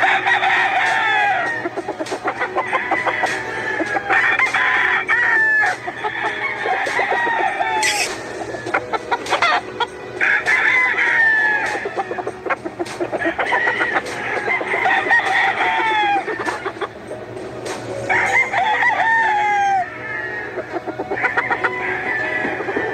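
Roosters crowing again and again, a new crow every second or two with some overlapping, each crow ending in a falling drawl.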